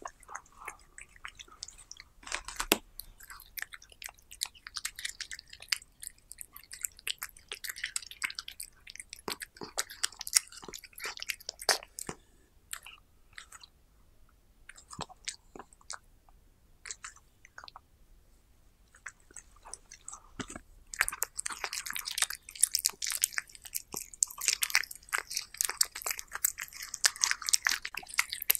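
A cat biting and chewing dried seaweed sheets, close up: runs of crisp crackling bites and chewing, sparser for a few seconds in the middle and much busier near the end.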